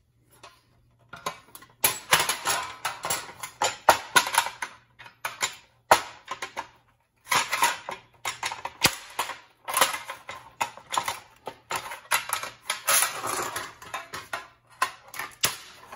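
Thin steel plate inside a .50 cal steel ammo can lid being worked loose: rapid metallic clattering and rattling as the cheap spot welds holding it give way. It comes in two long spells with a short break about halfway through.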